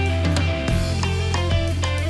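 Instrumental math rock played live by a band: electric guitar lines over a held bass guitar note, with drum kit and cymbal hits.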